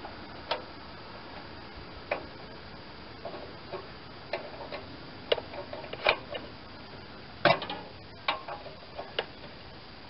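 Scattered metallic clicks and light clanks of a wrench being fitted and turned on a bolt of a snowblower's chute-rotation worm gear bracket, a dozen or so irregular strikes, thickest and loudest in the second half.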